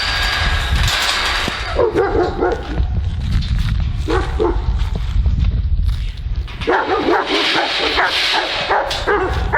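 Dog whining and yipping in short pitched calls: a few near two and four seconds in, then a quick run of calls from about seven seconds in.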